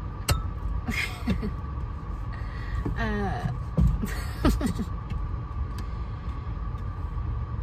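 A few sharp clicks and knocks as a long broom pole is pulled out and handled inside a car, over a steady low cabin hum.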